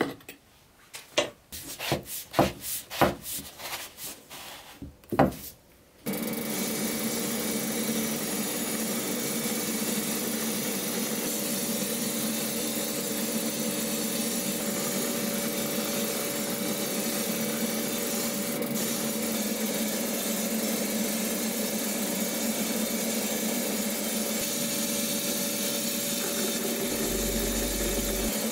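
A metal spoon scraping and tapping against a plastic powder cup while coating powder is stirred, a run of short scrapes. About six seconds in, a steady hiss with a low hum sets in as the powder-coating gun sprays blue powder.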